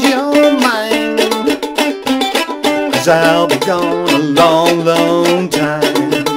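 Ukulele played in the clawhammer style, with a steady rhythm of struck and plucked strings, and a man's voice singing along with the melody.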